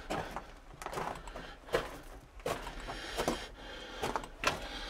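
Footsteps crunching on the loose gravel and rock floor of a mine tunnel, a step roughly every second.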